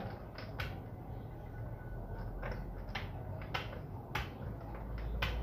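Bottle-cap dama pieces being picked up and set down on a plastic board, giving a string of sharp, irregularly spaced clicks and taps, about eight in all.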